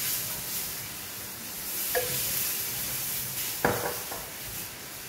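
Milk sizzling in a hot stainless steel frying pan of sautéed corn and spinach while a wooden spoon stirs the mixture. The spoon knocks against the pan twice, about two seconds in and again near four seconds, each knock with a brief ring.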